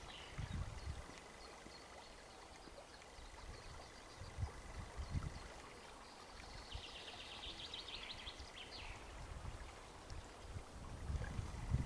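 Quiet river-bank background with a bird singing a fast trill of repeated high notes for a couple of seconds about halfway through. A few soft low thumps are also heard.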